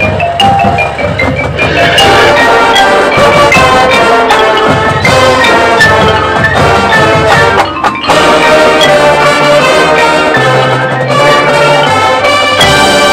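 Marching band playing, with the front ensemble's marimba, xylophone and glockenspiel prominent over sustained band chords. A brief drop about eight seconds in before the music picks up again.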